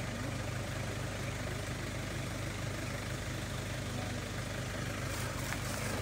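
Pickup truck engine idling: a steady low hum.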